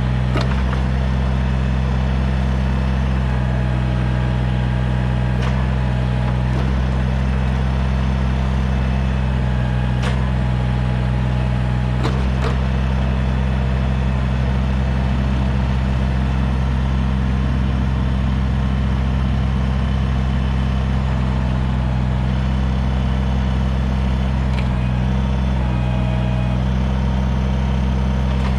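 Kubota BX sub-compact tractor's small three-cylinder diesel engine running steadily at a constant speed while working the backhoe. A few sharp knocks or clanks come through over it.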